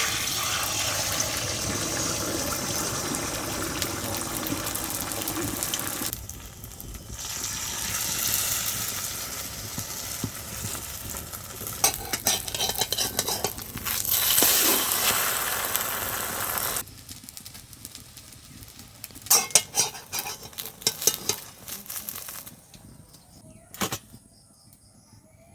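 Beaten eggs sizzling in hot oil in a kadai as an omelette fries, the sizzle dropping back for about a second at six seconds and again after about 17 seconds. Near the end a run of sharp clinks and scrapes, like a spatula against the pan.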